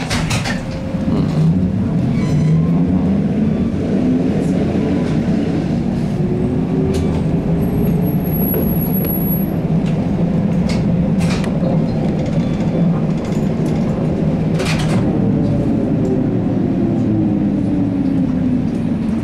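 Ride inside a ZiU-682G trolleybus: the traction motor's whine rises in pitch as it accelerates over the first few seconds, holds steady at speed, then falls away as it slows near the end, over road noise and a few knocks and rattles of the body.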